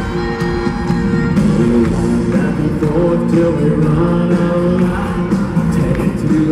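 Live country band music at a stadium concert, with a male lead singer coming in over the band about a second and a half in.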